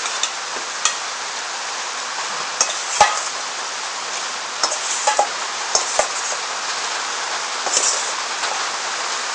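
Spinach-and-spice paste frying in oil in a stainless steel pan, a steady sizzle. About eight short knocks and clicks break through it as pieces of raw meat are dropped into the pan.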